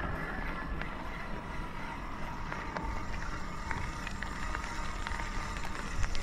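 Electric mountain bike rolling along a gravel track: tyres crunching over loose stones, with scattered small ticks and rattles and a faint steady high whine underneath.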